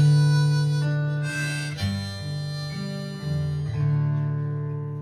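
Live acoustic folk music: strummed acoustic guitar chords ringing out, a new chord struck about every two seconds, with a sustained melody line held over them.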